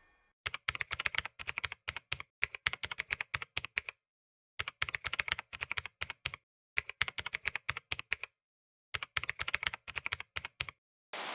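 Keyboard typing sound effect: several bursts of rapid key clicks separated by short gaps of complete silence.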